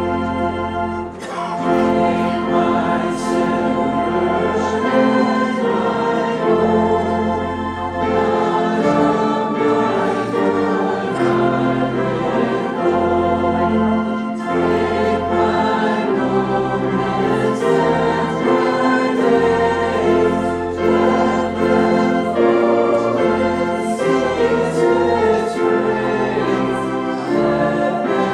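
A church congregation singing a hymn of invitation together, led by a song leader on a microphone, over held accompanying chords that change every second or two.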